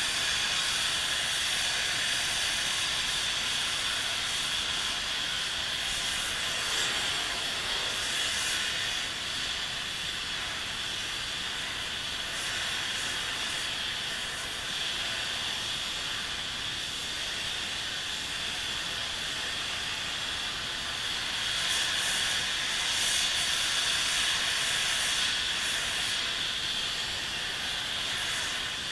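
A steady hissing noise, strongest in the upper-middle range with little bass. It swells slightly about three-quarters of the way through.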